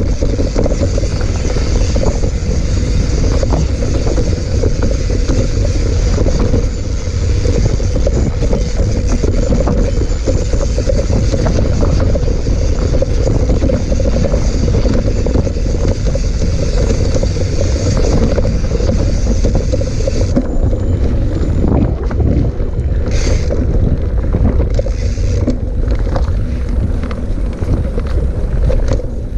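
Wind rushing over the microphone of a moving mountain bike, with the tyres running over a rough dirt trail and the bike rattling and knocking over bumps. The high hiss eases about twenty seconds in.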